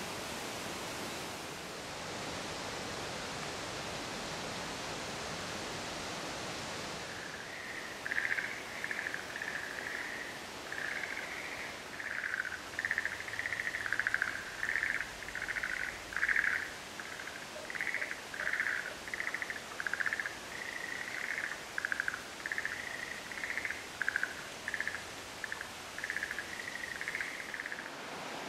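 A chorus of frogs calling from a forest pond: short trilled calls repeated about once a second, starting about seven seconds in. Before they start there is only a steady hiss.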